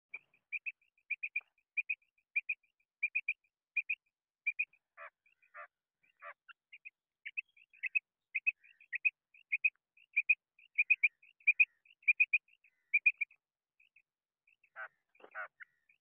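Female common quail calling: quick clusters of two or three short, high notes, repeated about every half second. A few lower, rougher calls come in about five seconds in and again near the end.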